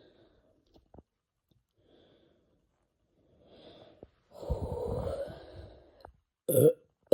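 A man's long, rough burp lasting almost two seconds, followed near the end by a short, sharp burp: gas brought up from a stomach full of fizzy soda.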